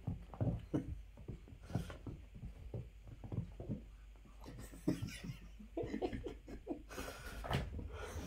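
Kittens scampering and pouncing on carpet after a wand toy: an irregular run of soft thumps and patters.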